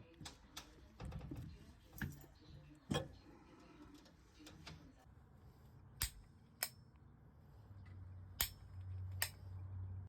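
Scattered sharp clicks and knocks of hand tools and parts being handled during work on an HVAC fan coil, about eight over ten seconds, with a faint low hum joining near the end.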